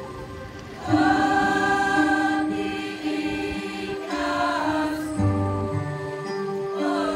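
Mixed choir of men's and women's voices singing an Indonesian patriotic song in long held notes, a new phrase coming in strongly about a second in.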